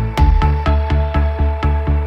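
Intro music with a steady, quick beat of about four beats a second over a deep bass and a few held tones.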